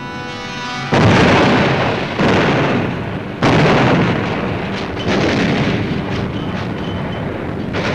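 Artillery shell explosions: four heavy blasts about a second or a second and a half apart, each trailing off into a rumble, the first cutting in suddenly about a second in.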